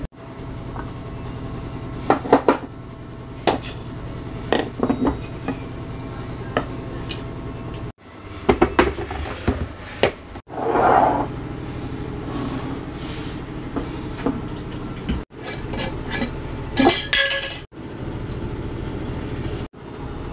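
Glass jars being filled and handled: sharp clinks and taps of glass, a short rush of something poured about halfway through, and detergent pods clicking into a glass jar near the end, over a steady low hum. The sound breaks off abruptly several times.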